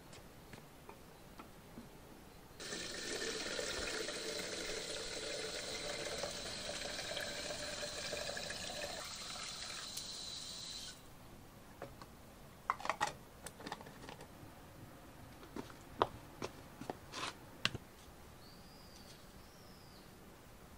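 Tap water running into a plastic water container for about eight seconds, starting and stopping abruptly. Afterwards come a scatter of light clicks and knocks, and near the end a bird's brief chirps.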